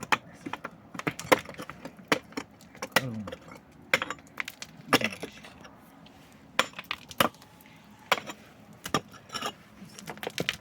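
A series of irregular sharp knocks and clinks of hard objects striking, coming roughly one to three times a second.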